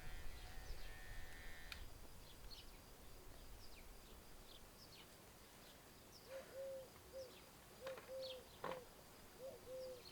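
Faint outdoor birdsong: high, thin chirps repeat throughout, and from about six seconds in a bird calls in low, hooting three-note phrases, repeated several times. A low rumble fades out in the first couple of seconds.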